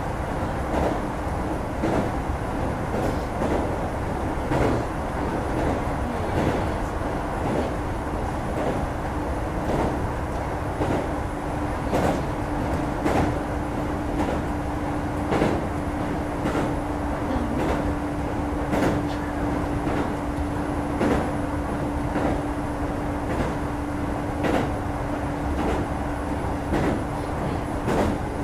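Inside a Kintetsu 2430 series electric train running at speed: steady rumbling running noise with a constant hum, and the wheels clicking over rail joints about once a second.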